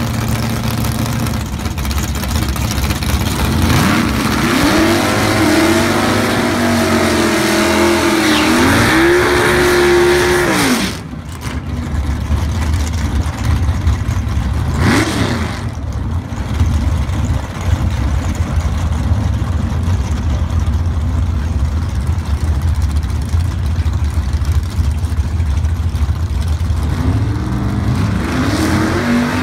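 Drag car's engine revving up and down hard for several seconds, as in a burnout out of the water box, then idling while it stages, with one short rev about halfway through. Near the end it revs up again at the starting line.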